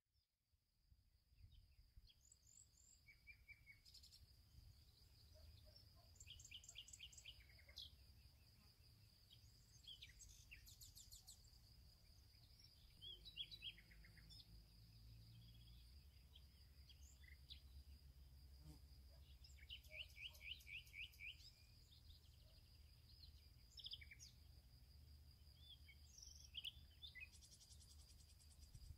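Faint wild birdsong: scattered short chirps and rapid trills of small birds, over a steady high thin whine and a low rumble.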